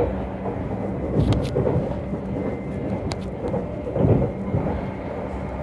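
Electric commuter train running into a station: a steady low rumble and hum, with heavier thumps about a second in and again about four seconds in, and a few sharp clicks.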